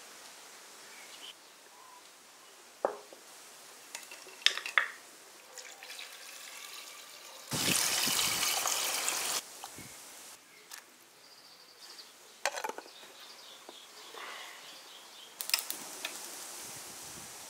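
Water poured into a clay soup pot over pieces of duck, a steady splashing pour lasting about two seconds midway. Sharp knocks and clicks sound before and after it, and there is another click near the end as the gas stove's knob is turned.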